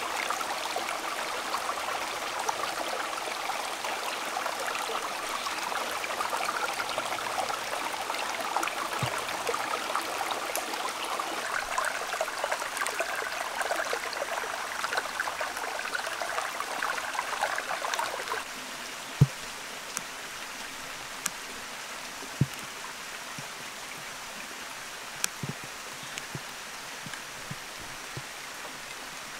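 Stream water babbling over rocks, which cuts off suddenly about two-thirds of the way through. It gives way to a quieter steady hiss with a few scattered sharp ticks.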